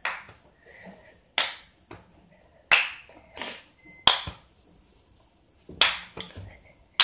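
Wooden kendama being played: the ball knocks against the cups and spike in a string of about eight sharp clacks at irregular intervals.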